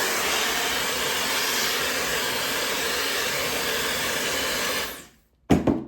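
High-speed hair dryer blowing on its cold setting, a steady rushing of air that winds down and stops about five seconds in. A short knock follows just before the end.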